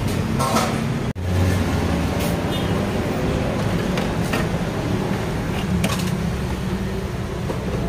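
Steady traffic noise from a busy road alongside an open-front eatery, with a few light clatters. The sound cuts out for an instant about a second in.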